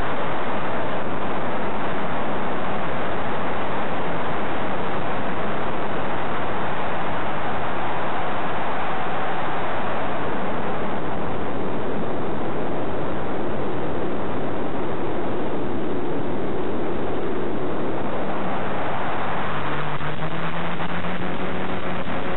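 Steady rushing, hiss-like noise carried on the quadcopter's analog FPV video link audio. A faint low hum that rises slightly in pitch joins it near the end.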